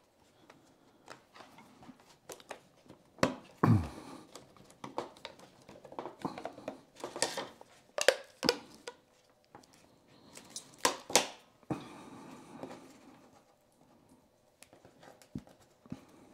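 A plastic diffuser lens being fitted into an aluminum LED strip channel: irregular clicks and knocks, with short stretches of rubbing noise between them.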